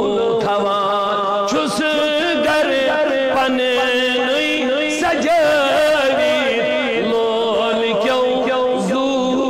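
A male voice singing a devotional chant in a wavering, ornamented line over a steady held drone tone.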